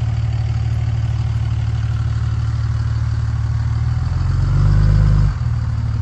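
Tow vehicle's engine running at low revs while it moves the empty boat trailer, a steady low hum that swells briefly about four seconds in, then settles back.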